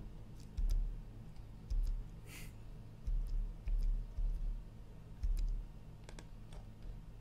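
Scattered clicks of a computer mouse and keyboard being worked, with several dull low thumps and one short hiss about two and a half seconds in.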